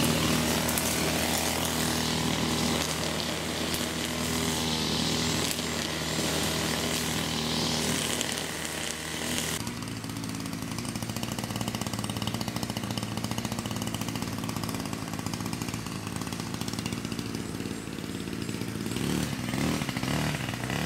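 A small engine running steadily with a droning hum; its sound changes abruptly about halfway through and then runs on at a lower, buzzier pitch.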